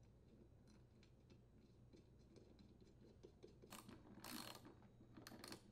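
Faint clicking of a socket ratchet driving the 14 mm clutch mounting bolts down, with small metallic clicks of the bolts and washers. There are short, louder runs of ratchet clicks about four seconds in and again near the end.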